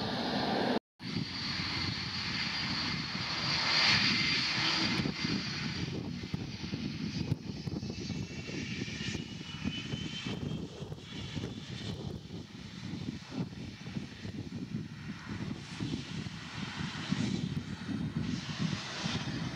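Airplane engines passing close by. The sound swells to its loudest about four seconds in, with a high whine over the noise, then fades to a low rumble. There is a brief cut-out about a second in.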